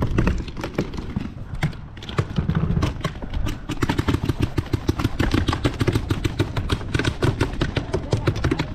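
Paintball markers firing in rapid strings of sharp pops, over a low rumble of movement and handling on the microphone.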